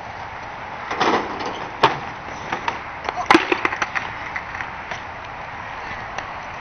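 Skateboard wheels rolling on rough concrete, with several sharp clacks of the board, the loudest about three seconds in.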